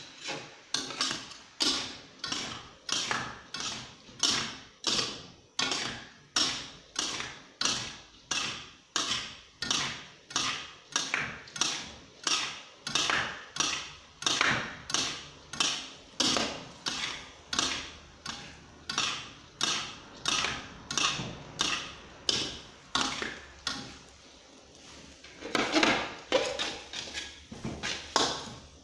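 Slotted metal spatula scraping and knocking against a metal wok as rice noodles are stir-fried, a stroke about twice a second. After a short lull about three-quarters of the way through comes a louder flurry of strokes.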